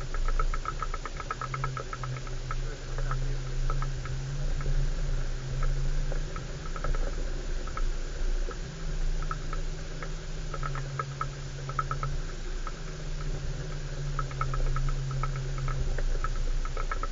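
Off-road vehicle engine running at low speed over a rough track, its drone stepping up and down in pitch as the revs change, over a low rumble. Bursts of rapid, light rattling clicks come and go throughout.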